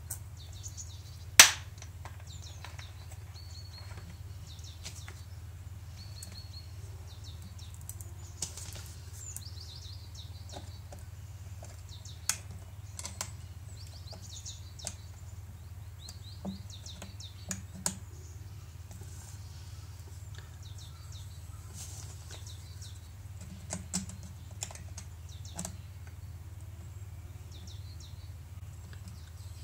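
A scalpel blade cutting into a thin plastic PET bottle, making scattered soft clicks and scrapes, one much sharper click about a second and a half in, over a steady low hum.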